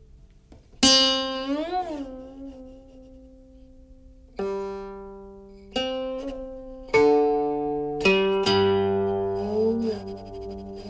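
Background music: a slow, sparse melody on a plucked string instrument, single ringing notes a second or more apart, some bent up and back down in pitch after the pluck.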